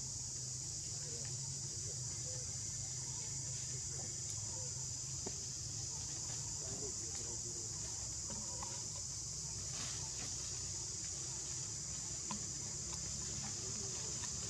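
Steady high-pitched drone of insects in tropical forest, unbroken throughout, over a low steady rumble and a few faint ticks.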